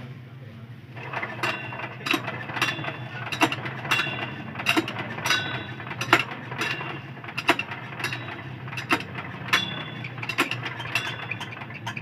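Irregular sharp metallic clicks and clinks, about two a second and starting about a second in, from hand work with a thin metal rod on a stopped Lifan air-cooled single-cylinder diesel engine, over a steady low hum.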